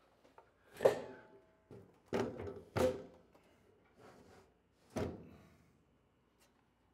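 A metal garage wall cabinet knocking and clunking as it is lifted onto its wall brackets. There are about four sharp knocks: the loudest comes about a second in and rings briefly, then come two close together around two to three seconds in, and one more near five seconds.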